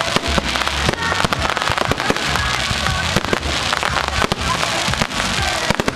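Fireworks going off: a rapid, continuous run of sharp bangs and crackles.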